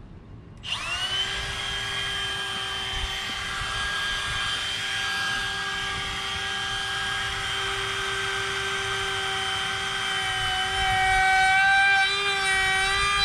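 Electric wood router switching on about half a second in, spinning up and then running at a steady high whine while rounding over the edges of an apitong hardwood board. Near the end the whine gets louder and its pitch wavers as the bit bites into the wood.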